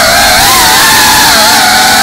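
Brushless motors and ducted propellers of a GEPRC Cinelog35 FPV cinewhoop whining loudly, heard through its onboard camera; the pitch holds fairly steady with small wavers as the throttle is worked.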